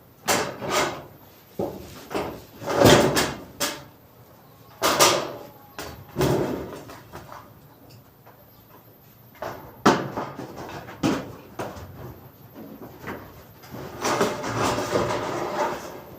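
Irregular knocks and bangs, a dozen or so at uneven spacing, the loudest about three seconds in, with a longer scraping, rustling stretch near the end.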